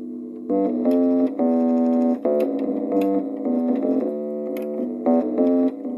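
Instrumental music: keyboard chords played in a series of held notes, with no singing.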